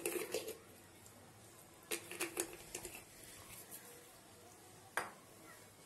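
Hands kneading raw mutton pieces with yogurt and ground spices in a stainless steel bowl: bursts of wet squelching and clicking near the start and again about two seconds in, then a single sharp click about five seconds in.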